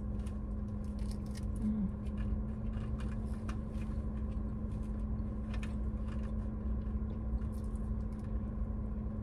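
Biting into and chewing a croissant sandwich with lettuce: faint soft crunches and mouth clicks, scattered through. Underneath runs the steady low hum of a car cabin.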